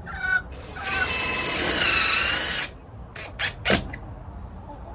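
Cordless drill running for about two seconds, its whine sagging in pitch under load and then cutting off sharply, as it drives a screw to fasten hardware cloth. A few light knocks follow.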